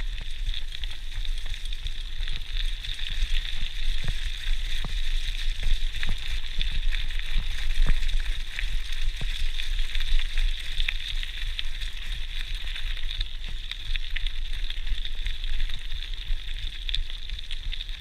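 Mountain bike riding along a leaf-strewn gravel track: a steady hiss of tyres rolling on the surface with many small clicks and rattles from the bike, over a low wind rumble on the microphone.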